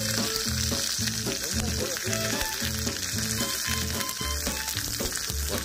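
Pork belly sizzling on a hot cast-iron pot-lid griddle (sotttukkeong), a steady spitting hiss of fat frying. Background music with a steady beat plays underneath.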